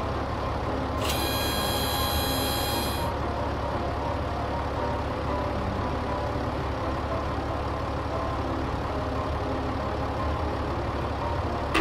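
Steady engine sound of a heavy construction vehicle, a bulldozer, running without change.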